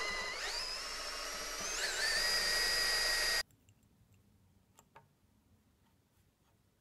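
Makita cordless drill whining as its bit drills into the wooden chair rail. The motor's pitch steps up twice as it speeds up, and it cuts off suddenly about halfway through. A few faint clicks follow.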